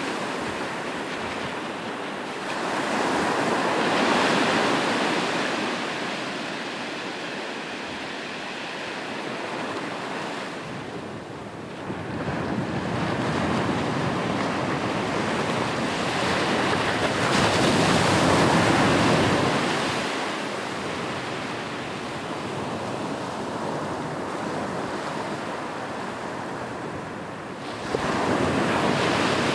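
Sea waves breaking and washing on the shore, the surf swelling and ebbing in slow surges several seconds long, the loudest about two-thirds of the way through and a sudden one near the end.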